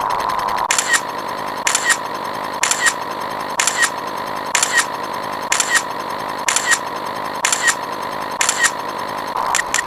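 Electronic sound effect: a steady tone over a hiss, with a pair of sharp clicks about once a second.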